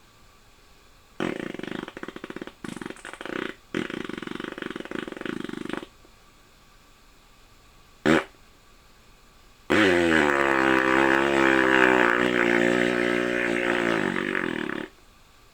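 Comic fart-like noises played as music: a sputtering, buzzing stretch of several seconds, a short blurt about eight seconds in, then one long pitched fart-like tone that drops at its start and holds for about five seconds.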